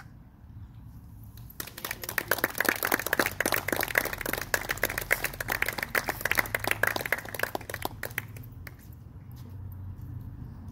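A crowd applauding. It starts about a second and a half in and dies away into a few scattered claps near the end.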